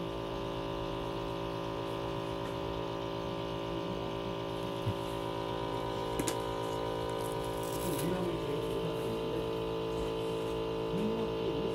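Steady electric hum of a running machine, an even drone of several tones, with a few light clicks.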